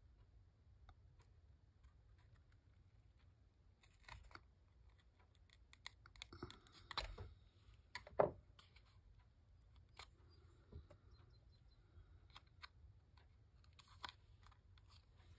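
Faint handling of a small paper tag as a hole is poked through it with a piercing tool and a little metal brad is fitted: scattered soft clicks and paper rustles, the loudest a sharp tap about eight seconds in.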